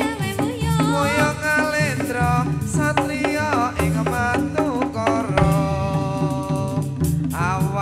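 Javanese jathilan accompaniment music: hand drums beating a dense rhythm under gamelan-style pitched percussion, with a wavering sung melody on top.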